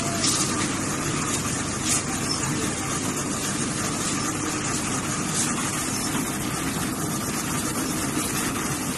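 Concrete mixer engine running steadily while its loading hopper is filled with cement, with a few brief knocks.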